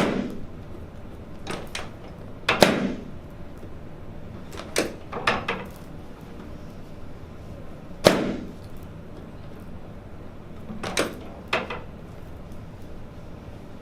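A series of sharp knocks and clacks, about eight, irregularly spaced, some with a short ringing tail.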